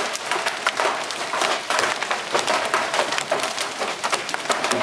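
Large hailstones pelting the ground and trees: a dense, steady clatter of many sharp impacts.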